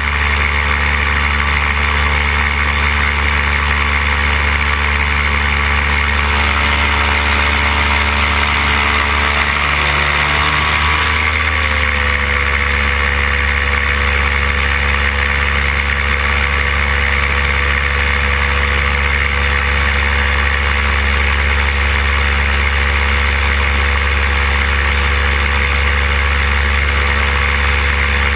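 Paramotor engine and propeller running steadily in flight at cruise throttle. Its pitch wavers and shifts slightly about eleven seconds in.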